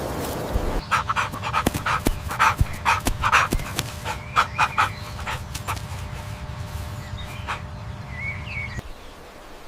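An animal making short, quick sounds, two to three a second, which weaken after about four seconds, over a faint steady hum.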